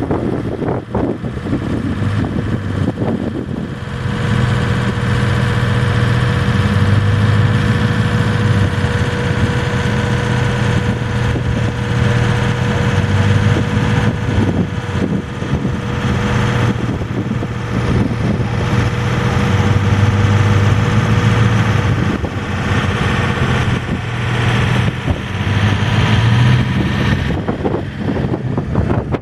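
An engine running steadily, with a steady whine through the middle stretch.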